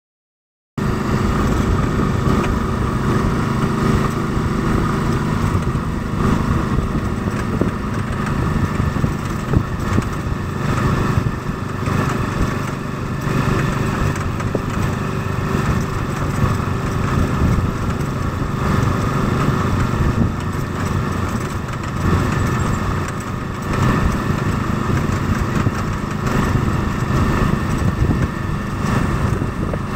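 Small vehicle engine running steadily while driving along the road, with wind and road noise from the open-sided vehicle. It cuts in under a second in.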